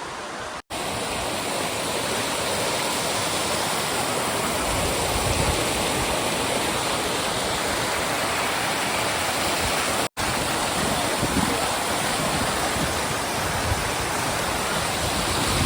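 Steady rush of a large waterfall, a dense even roar of falling water. It cuts out for an instant twice, about half a second in and about ten seconds in.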